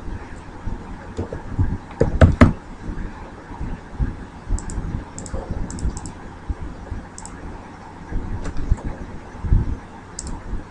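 Scattered computer keyboard keystrokes and mouse clicks, a few quick clicks at a time, with two loud knocks about two seconds in and low thumps on the desk throughout.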